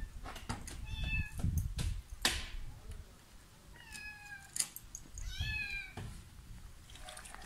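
Kitten meowing loudly three times, crying for food. The first call is short, the second falls slightly in pitch, and the last rises and then falls. Several sharp clicks or knocks come between the calls.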